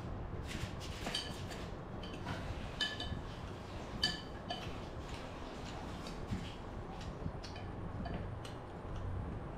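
A metal spoon and chopsticks clinking against a ceramic soup bowl during eating: a few scattered clinks, some with a short bright ring, the sharpest about four seconds in. A low steady hum runs underneath.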